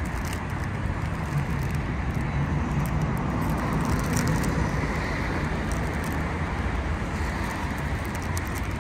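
Steady city street traffic noise: a low, even rumble of passing road vehicles.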